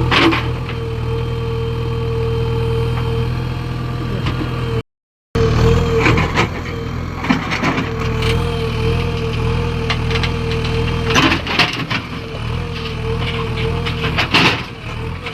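Diesel engine of working machinery running steadily with a constant whine over it, broken by occasional knocks and clatters. The sound drops out completely for about half a second near the middle.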